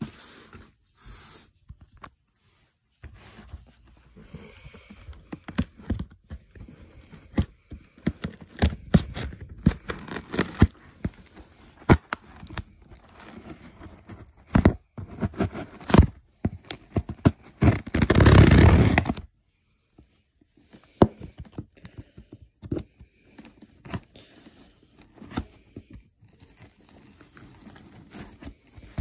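Cardboard box being handled and opened by hand: scraping, rustling and tearing, with many small knocks and clicks and one loud rush of noise about two-thirds through.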